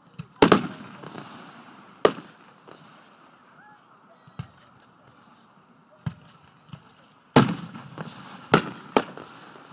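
Aerial fireworks shells bursting: a string of sharp bangs, each trailing off in a short rumble, with a quick cluster of three loud ones in the last two and a half seconds.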